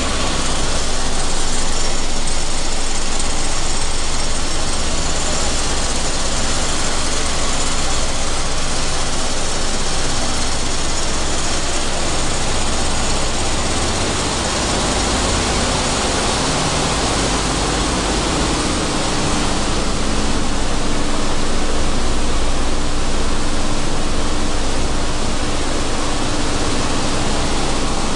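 Sunflower seed hulling machine running steadily, a dense, even noise of seeds being hulled, with a faint steady tone coming in about two-thirds of the way through.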